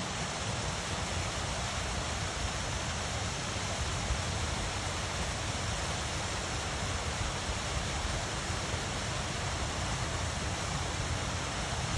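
Winter stream and small waterfall, water rushing steadily.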